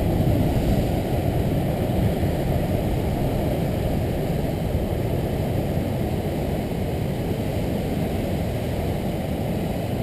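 Heavy ocean surf breaking over rocks, heard as a steady low roar without separate crashes.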